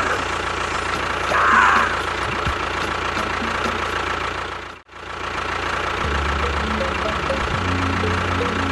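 A small engine running steadily. It drops out briefly just under five seconds in, and a deeper, steady drone comes in about a second later.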